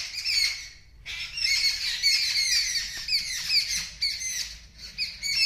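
A group of small birds screaming: many rapid, shrill, overlapping alarm calls at the sight of a cat, with a short lull about a second in.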